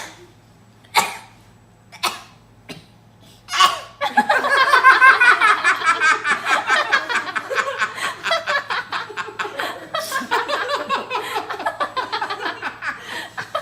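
Four short, sharp bursts of breath about a second apart, then, about four seconds in, a person starts laughing hard: a long, loud run of rapid ha-ha pulses that keeps going.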